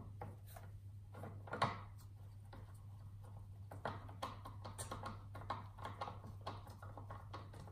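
Hand screwdriver driving a screw into a computer motherboard: small metallic clicks and ticks of the bit and screw, with a sharper click about a second and a half in and quicker ticking in the second half.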